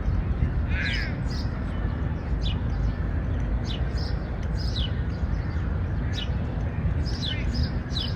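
Birds calling: short, high, falling notes repeated about once a second, with a harsher call about a second in, over a steady low rumble of city background noise.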